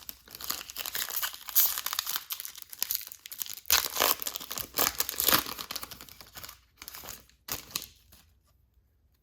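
Wrapper of a baseball card pack being torn open and crinkled: continuous crackling for about six seconds, then two short crinkles before it stops about eight seconds in.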